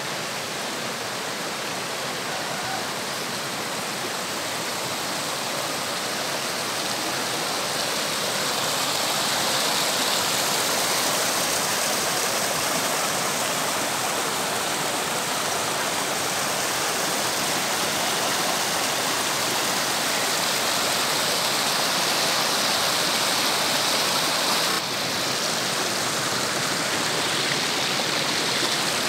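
Shallow stream running over rocks and pebbles: a steady rush of water, a little louder from about a third of the way in, with a brief sudden dip in level near the end.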